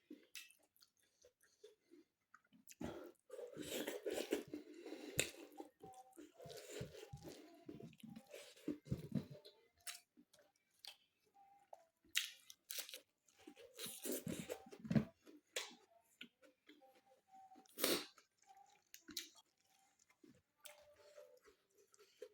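A person chewing and crunching food close to the microphone, with irregular wet mouth clicks between bites. The chewing is busiest a few seconds in and again around the middle, with one sharp, loud crunch a little later.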